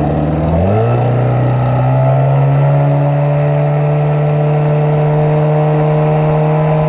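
1983 Mercury 9.8 hp two-stroke outboard motor being throttled up under way. Its pitch climbs sharply under a second in, then holds steady at the higher speed.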